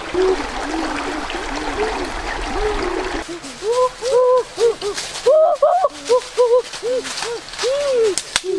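Frogs calling: a run of short rising-and-falling croaks, several overlapping at once. For the first three seconds they sit over a steady rush of water that then stops.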